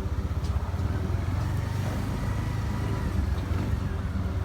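Engine of the elephant transport truck running steadily, a low rumble.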